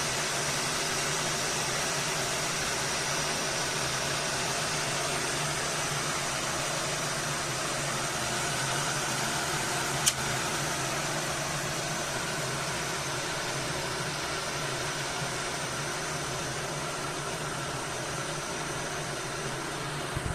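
Glass electric kettle heating water, a steady rushing noise that eases slightly near the end. A single sharp click about halfway through.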